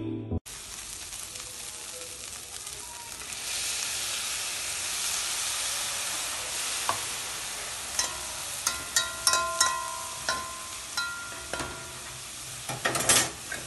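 Ground beef sizzling as it fries in a pan, stirred with a metal slotted spoon. From about eight seconds in, the spoon clinks and scrapes against the pan several times, most loudly near the end.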